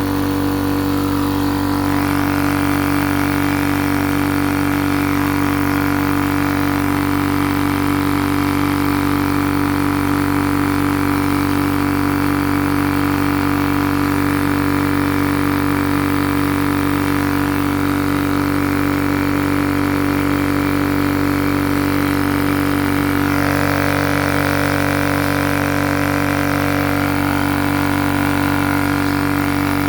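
TUXING TXED012 high-pressure air compressor running steadily with a loud, even hum, its outlet open. It is not building pressure, which the owner puts down to a missing rubber seal.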